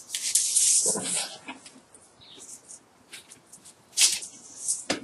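Adhesive tape pulled off the roll with a hissing rip and wrapped around a bundle of copper magnet wire, then light rustling and ticking as the wires are handled, with a sharp click about four seconds in.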